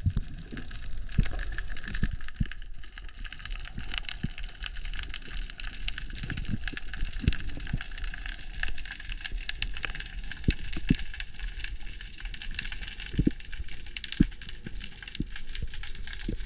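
Underwater ambience picked up by a diver's camera: a steady hiss with constant faint crackling and scattered sharper clicks and knocks.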